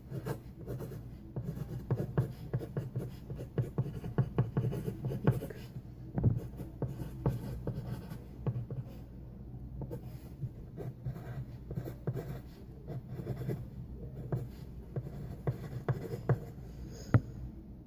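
Pencil writing and drawing on paper: irregular scratching strokes and light taps, with one sharper tap near the end.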